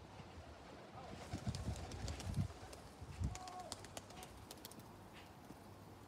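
A small flock of tumbler and white pigeons flapping their wings as they come down onto a tiled roof. A burst of low wing beats comes between about one and three and a half seconds in, with sharp clicks and clatter through the middle.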